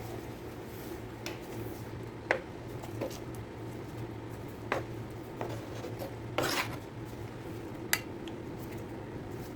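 Kitchen utensils clinking against dishes and pots: about half a dozen separate clinks, one a little longer about six and a half seconds in, over a steady low hum.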